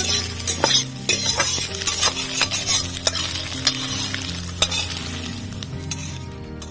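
Steel spatula stirring and scraping scrambled egg around a steel kadai over a light sizzle, with sharp metal-on-metal clicks. The sound fades toward the end.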